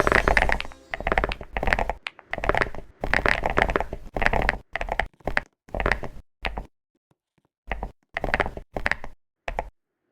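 Computer keyboard being typed on in quick bursts of rapid key clicks, with short pauses between bursts; the clicks thin out into shorter, sparser bursts in the second half.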